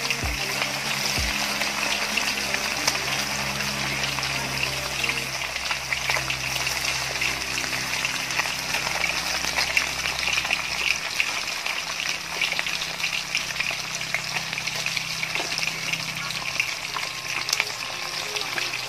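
Chicken wings deep-frying in a wok of hot oil: a dense, steady crackle and sizzle of bubbling oil. The wings are still pale, early in the frying, with the oil foaming hard around them.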